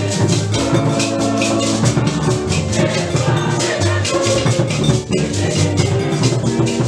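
Upbeat music with drums and a steady beat, with a short break in the beat about five seconds in.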